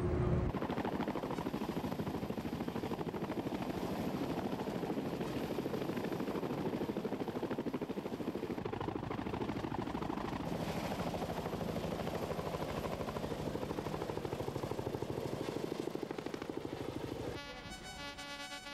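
Steady machine noise with a fast, even pulse. Near the end it drops away to a quieter sound with a few steady tones.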